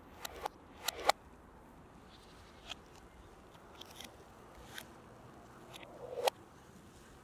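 Reversed audio of small handling sounds: about eight short clicks and taps, several swelling up and then cutting off suddenly, the loudest about a second in and just after six seconds in.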